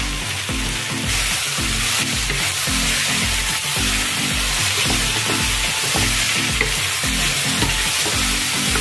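Sliced mushrooms, carrots and onions sizzling steadily as they fry in oil in an electric cooking pot, stirred with a wooden spatula. Background music with a steady beat underneath.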